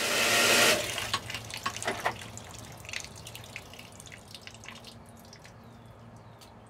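Water splashing and dripping: a brief rush in the first second, then scattered drips that thin out and grow fainter, over a faint low steady hum.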